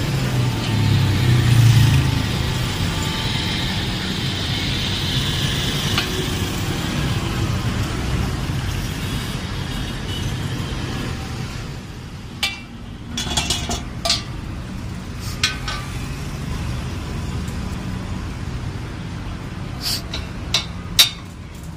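A vehicle's engine rumble, loudest about two seconds in and fading through the first half. Then a scatter of sharp metallic clinks as a load cell and its fittings are handled against a steel weighing-platform frame, the loudest few near the end.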